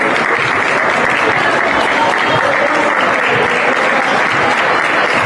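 Crowd applauding in a gymnasium, steady and loud.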